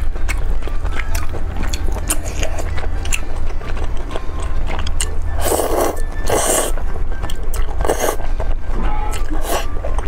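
Close-miked eating of thick noodles in sauce: soft chewing and mouth clicks, then four loud wet slurps from about five seconds in as strands are sucked up from the chopsticks.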